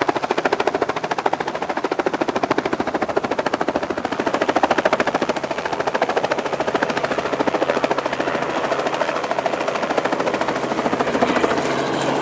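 Small helicopter's rotor chopping in a rapid, even beat over its engine, loud and steady.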